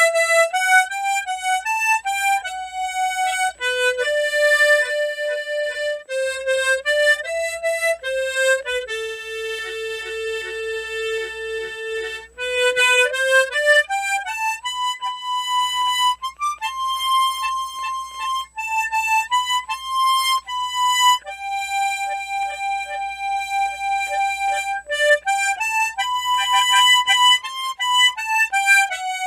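Harmonica playing a slow solo melody of single held notes, each ringing a second or more and stepping up and down, with one long lower note held about a third of the way in.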